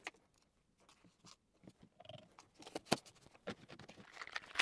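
A plastic shaker bottle being handled: a few faint, separate clicks and knocks as its lid is taken off and snapped back on.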